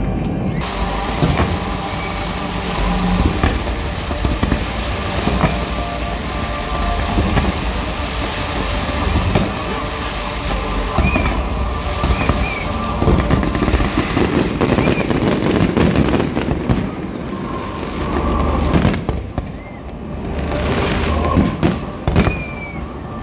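Fireworks display: a dense, continuous barrage of bangs and crackling explosions, easing briefly a few seconds before the end and then picking up again.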